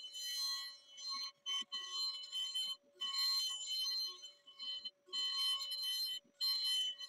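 PwnCNC spindle on an Onefinity Elite Foreman CNC router cutting out an oval sign profile with a hog end mill: a high steady whine with the hiss of the cut, which drops away briefly several times as the bit moves along the outline.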